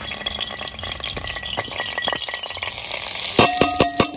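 Dense rattling clatter. About three seconds in it turns to louder, sharper clinks with a ringing tone underneath.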